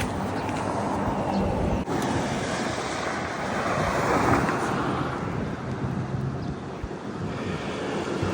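Wind buffeting the microphone outdoors: a steady rushing noise with gusty low rumble, swelling louder around the middle.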